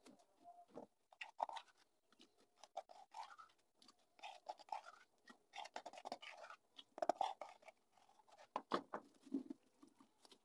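Faint, irregular scraping and crackling as a newspaper papier-mâché pot is handled and tilted, its paper shell rubbing on the board while wet plaster of Paris mixture is worked around the inside.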